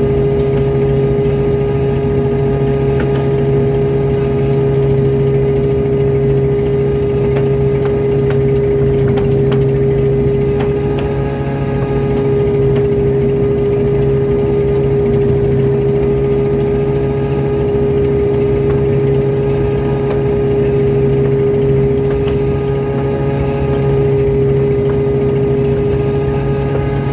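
Fishing boat's engine running steadily, a loud constant drone with a steady hum that does not change.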